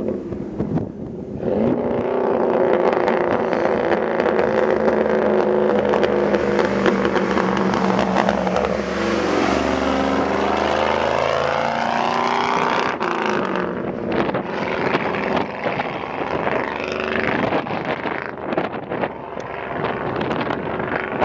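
1966 Ford flatbed truck with tall exhaust stacks driving up and past. Its engine note grows louder as it approaches, drops in pitch as it passes about ten seconds in, then eases off as it pulls away.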